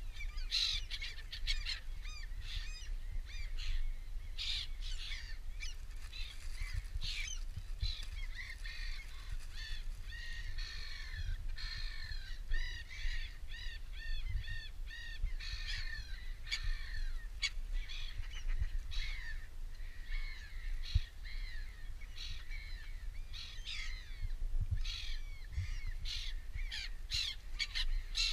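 Many birds calling at once, with overlapping harsh calls and chirps. A close run of quick repeated notes comes around the middle.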